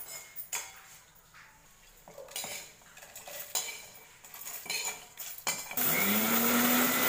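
Metal kitchen utensils clinking several times, then about 6 s in an electric mixer grinder switches on, its motor spinning up with a quickly rising hum and then running steadily loud as it grinds roasted fenugreek, mustard seeds and dried red chillies into a spice powder.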